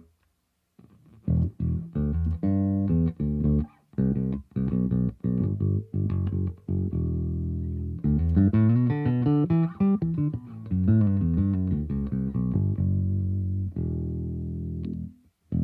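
Aria Pro II CSB Deluxe electric bass guitar played alone. It plays short, separate plucked notes, then a quicker run of notes, and settles on one longer held note near the end.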